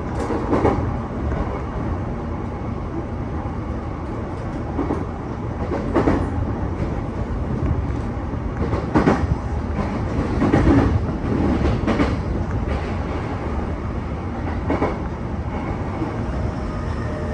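Running noise inside a JR East E233-2000 series electric commuter train: a steady rumble of wheels on rail, with irregular clacks as the wheels cross rail joints and points. Near the end, as the train slows into Kashiwa station, a faint falling whine from the traction motors under braking sets in.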